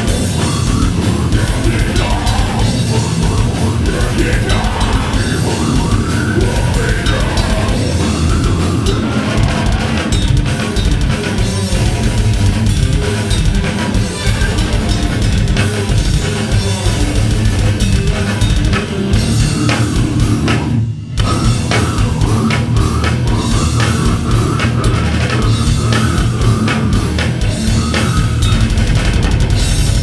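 Death metal band playing live: heavily distorted electric guitars over a drum kit, loud and unbroken. The whole band stops dead for a split second about two-thirds of the way through, then comes straight back in.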